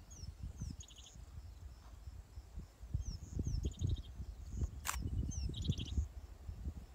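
Birds calling in open grassland: a short stuttering trill and quick falling whistles repeated every second or so. Underneath runs an irregular low rumble, and there is one sharp click about five seconds in.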